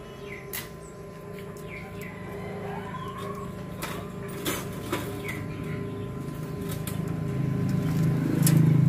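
Light metallic clicks of a socket driver on an electric motor's terminal studs and nuts, a handful of separate ticks, over a steady low hum that grows louder near the end. Short falling bird chirps come and go behind it.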